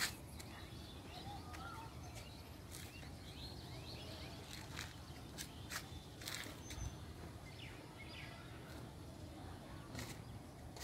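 Small birds chirping, with short calls and quick pitch flicks scattered all through, over a low steady background rumble.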